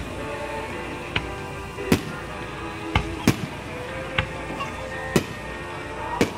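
Aerial fireworks shells bursting in a series of sharp bangs, about one a second with a quick pair near the middle, over background music.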